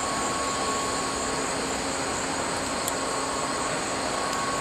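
Steady hum and hiss of a large museum hangar's air handling, with a faint steady tone running through it.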